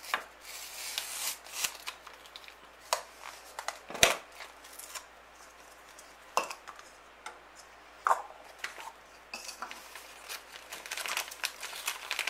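Hand handling of a hard plastic egg-shaped Pavlova Magic container: the paper wrapper peeled off and scattered clicks and knocks of the plastic shell, the loudest about four seconds in. Near the end, a foil sachet crinkles as it is pulled out and handled.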